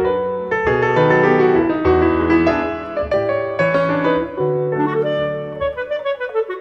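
Background instrumental music, led by piano with bass notes beneath.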